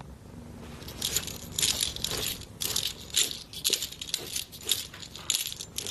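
A small rattling object shaken in quick, even shakes, about three or four a second, starting about a second in.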